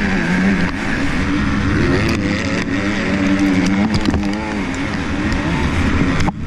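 Motocross bike engines at race pace, heard from the rider's helmet: the bike's own engine runs hard, its pitch rising and falling with the throttle, with other race bikes close ahead. The sound drops out briefly near the end.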